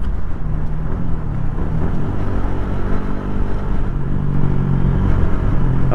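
Yamaha Sniper 150's single-cylinder four-stroke engine running while riding in traffic, holding a fairly steady pitch, over a heavy low wind and road rumble.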